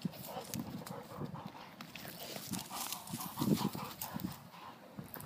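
A dog close to the microphone, making uneven short, low sounds with light clicks scattered among them.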